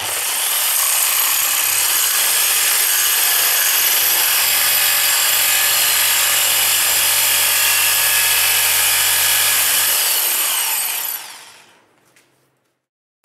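Jigsaw with a metal-cutting blade sawing teeth into the end of a 2-inch metal pipe nipple held in a vise. It makes a steady, high-pitched cutting noise that winds down and stops about a second and a half before the end.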